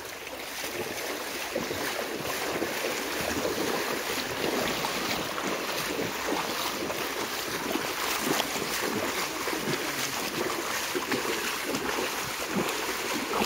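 Continuous splashing and sloshing of water as people wade through a shallow stream, pushing a two-pole hand net through it.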